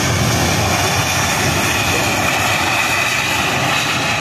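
Jet engines of an Airbus A320-232 airliner, IAE V2500 turbofans, running loud during the landing roll-out: a steady rushing noise with a high fan whine on top.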